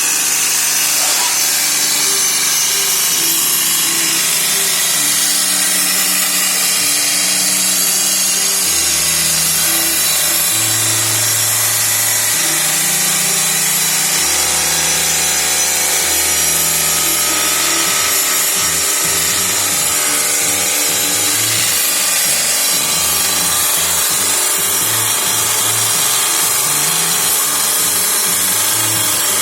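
Power grinder running steadily against the steel blade of a grass chopper machine, sharpening it with a continuous high grinding hiss. Background music with a slow, stepping bass line plays underneath.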